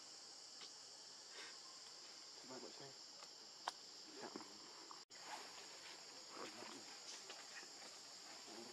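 Steady, faint, high-pitched insect chorus, with a single sharp click a little before halfway and a brief cut-out in the sound about five seconds in.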